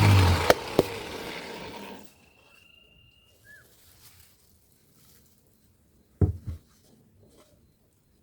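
A woodworking power tool switched off and winding down, fading out over about two seconds, with two sharp clicks as it stops. Then it is nearly quiet, with a short chirp, and a couple of dull knocks come near the end.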